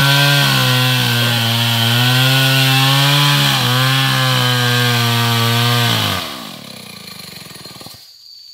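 Two-stroke chainsaw running at high revs, its pitch dipping briefly twice, then shut off about six seconds in, the pitch falling as the engine winds down.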